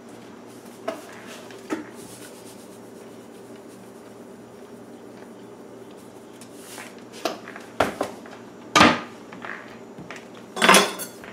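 Kitchen handling noises: a couple of soft clicks, a brief faint hiss of salt poured from a canister into a stainless steel saucepan of salsa, then sharp clinks and knocks of metal against the pan and countertop. The two loudest come about two-thirds in and near the end.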